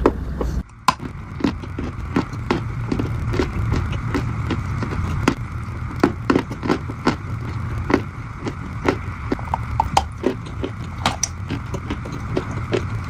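Dried clay being crushed and crumbled, a dense run of irregular sharp crunches and crackles, with a brief break under a second in.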